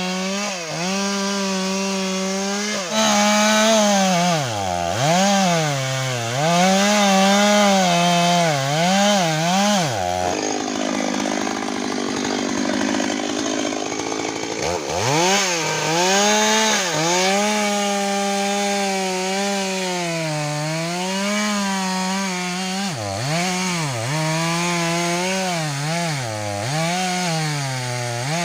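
Stihl MS 382 two-stroke chainsaw running at high revs while cutting wood, its engine note repeatedly dipping and picking up again as the chain loads and the throttle is worked. About ten seconds in, the clear engine note drops away for around four seconds into a rougher, lower sound before the saw revs back up.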